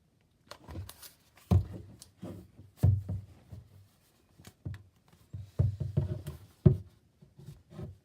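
Plastic bottle of moisturizing lotion being squeezed and handled as lotion goes into slime: a dozen or so irregular short squishes and dull knocks.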